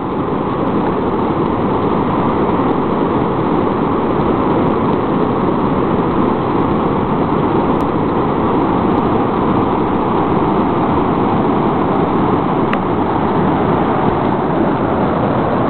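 Whitewater rapids rushing: a loud, steady roar of churning river water.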